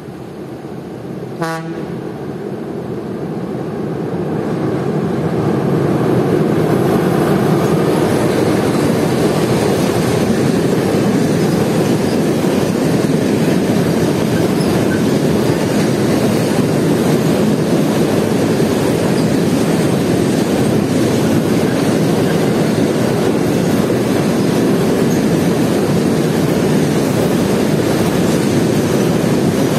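Container freight train hauled by a Breda Marelli E-32 electric locomotive rolling across a steel truss bridge: a steady, loud rumble of wheels and wagons that builds over the first six seconds and then holds. A brief pitched toot sounds about a second and a half in.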